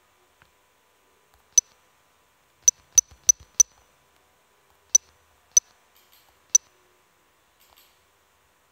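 Android phone's touch-feedback clicks as on-screen buttons are tapped: eight short, sharp ticks, four of them in a quick run about three seconds in, the rest spaced about a second apart.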